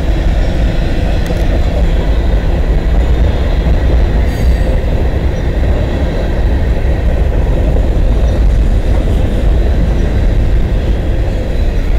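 Freight train cars (covered hoppers and tank cars) rolling past at a steady speed: a continuous, even rumble of steel wheels on the rails.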